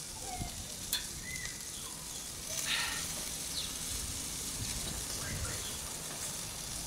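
Coiled boerewors sausage sizzling on the grate of a kettle barbecue over hot coals, a steady hiss. There is one sharp click about a second in, and the sizzle grows a little louder from about three seconds in.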